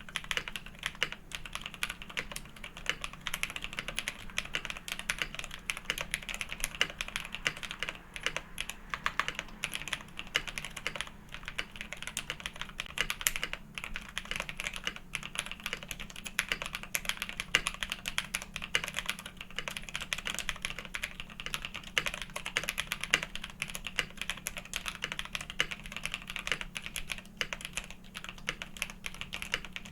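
KBDfans KBD67 Lite custom mechanical keyboard, with Emogogo linear switches, PBT keycaps, a polycarbonate plate and a tape mod, being typed on continuously: a fast, dense stream of keystrokes.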